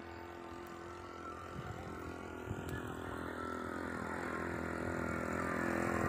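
A motor vehicle's engine running and growing steadily louder as it draws nearer.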